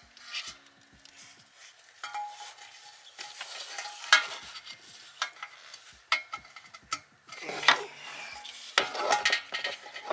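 Gloved hands handling air-suspension compressors and their air lines: irregular small clicks, clinks and scraping, with rustling between them.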